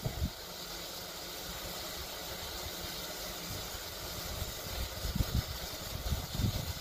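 Steady hiss at the smokestack of a 1916 Case 80 HP steam traction engine with its fire freshly lit, broken by low rumbles of wind on the microphone.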